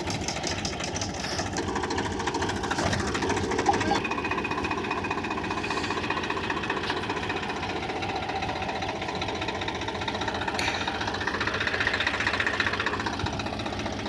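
Swaraj 963 FE tractor's three-cylinder diesel engine running steadily with a rapid knocking clatter, under load pulling a seed drill through tilled soil.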